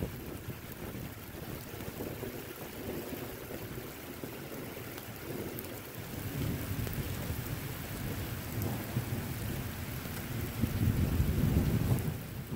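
Steady rain hiss with low rolling thunder, the rumble building over the second half and loudest near the end.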